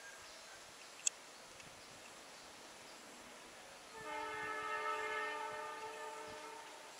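Diesel locomotive's multi-tone air horn: one long blast about four seconds in, several steady pitches sounding together as a chord for about three seconds as the train approaches.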